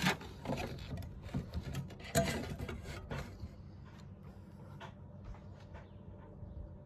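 Handling noise of objects being moved and set down: irregular knocks, clicks and rubbing, busiest in the first three seconds, then a few sparse ticks over a faint, low, steady hum.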